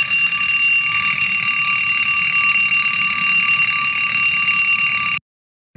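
Twin-bell alarm clock ringing loudly and without a break, then cutting off suddenly about five seconds in.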